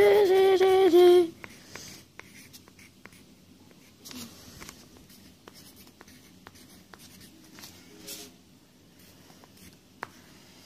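A voice hums a few steady notes for about the first second, then a pen scratches and taps lightly on paper in short, quiet strokes as a drawing is made.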